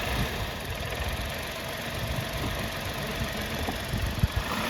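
Tata Altroz engine running as the clutch is let out and the throttle pressed, with a short knock about four seconds in as the engine jerks. The owner suspects the rubber of the mount is cut or compressed, leaving too little gap.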